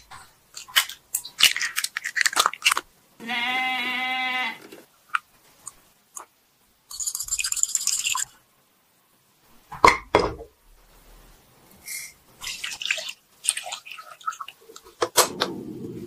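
Kitchen prep sounds: clicks and knocks of eggs being cracked into a ceramic bowl and beaten with a whisk, with a short pitched tone about three seconds in. Near the end a portable gas stove lights with a sharp click and its flame gives a low rush.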